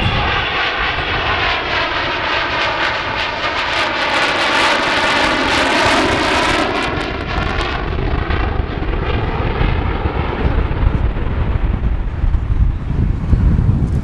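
Avro Vulcan B2 XH558's four Rolls-Royce Olympus jet engines in a close flypast: loud rushing jet noise whose tone sweeps down and back up as the bomber passes overhead, turning duller in the second half as it moves away.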